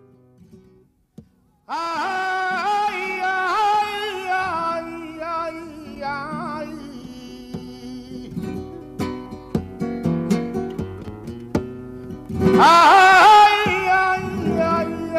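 Background music: a Spanish song, a singer holding long, wavering notes over plucked acoustic guitar. The voice comes in about two seconds in, after a few fading guitar notes, and swells louder near the end.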